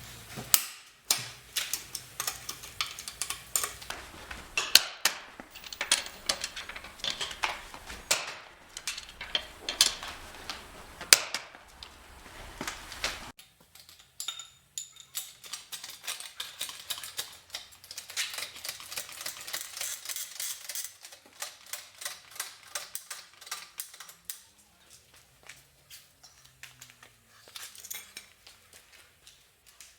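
Metal hand tools and wheel bolts clicking and clinking in quick, irregular strokes while a car's wheels are fitted; the background hum drops out about 13 seconds in, and the clicks after that are quieter.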